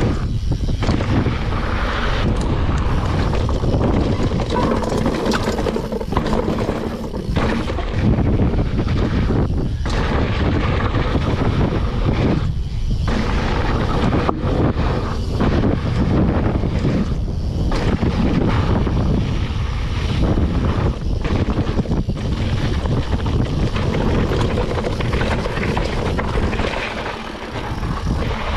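Riding noise from a mountain bike on a dirt trail: wind rushing over a GoPro's microphone, with tyre roar and rattle, a steady loud rumble that dips briefly several times.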